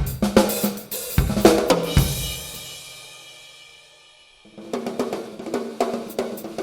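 TAMA Starclassic Maple drum kit played through a sound check: a beat on snare, bass drum and hi-hat, then about two seconds in a cymbal crash left to ring and fade out. At about four and a half seconds playing starts again with quick, even strokes.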